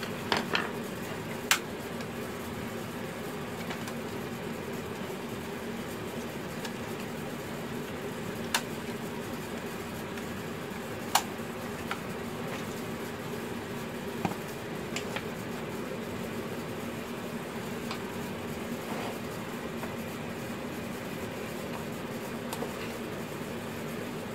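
Plastic parts of a radio-controlled model truck being handled and taken apart by hand: a few sharp clicks and taps, spaced several seconds apart, over a steady background hum.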